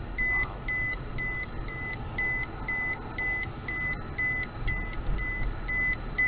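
Handheld radiation dosimeter sounding its alarm: short high beeps repeating steadily about twice a second, the sign of a raised radiation dose rate as the reading climbs. A steady low rumble of the car's road noise lies underneath.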